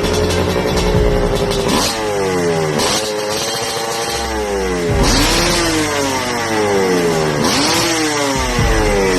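Kawasaki KMX125's single-cylinder two-stroke engine being revved in blips. Four times the revs climb quickly, then fall away slowly.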